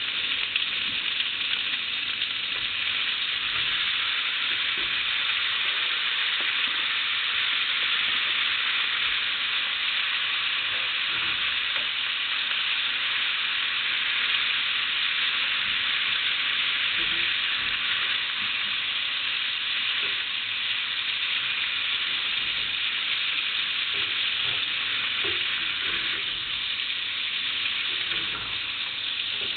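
Beef and onions sizzling in butter in a frying pan: a steady frying hiss, with occasional stirring in the pan.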